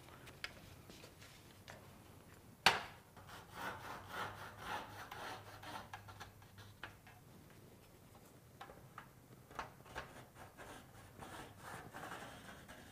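Marker pen scratching along a straight edge on a metal roof panel, in bouts of short rubbing strokes with small ticks between, as a line is drawn across the panel. A single sharp knock about two and a half seconds in is the loudest sound.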